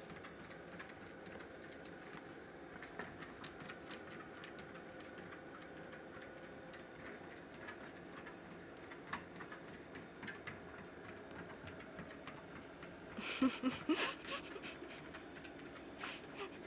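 Treadmill running steadily with a faint motor hum, and a small dog's paws pattering lightly on the moving belt. A cluster of louder clicks and knocks comes about three-quarters of the way through.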